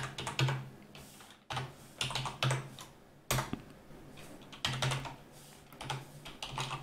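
Typing on a computer keyboard: runs of key clicks broken by short pauses.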